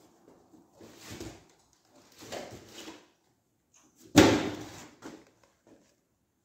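Motorcycle air-intake parts being handled and fitted by hand: two short scrapes, then a single sharp knock about four seconds in.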